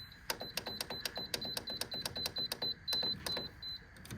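Electronic control panel of a Kenmore Elite 15,000 BTU window air conditioner beeping as its buttons are pressed: a quick run of short high beeps with clicks, about five a second, stopping near the end.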